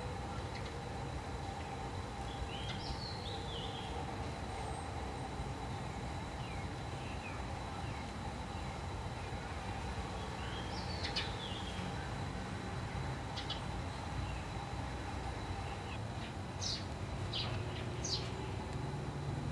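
Garden ambience: scattered short bird chirps, a few at a time and more of them near the end, over a steady low background rumble.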